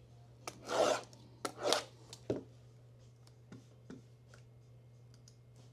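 Handling and opening a sealed trading-card box: two short scraping swishes of cardboard and plastic wrap being rubbed, with a few light taps, over a faint steady hum.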